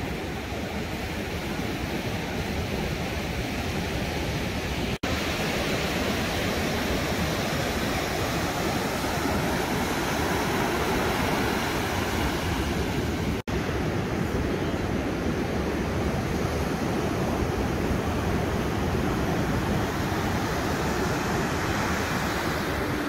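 Steady rushing noise of a vehicle in motion, dropping out for an instant twice.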